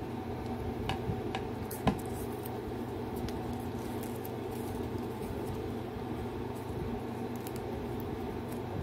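Fingers handling and peeling a toy doll's small mask accessory from its paper wrapping: faint crinkles and light clicks, one sharper click about two seconds in, over a steady low hum.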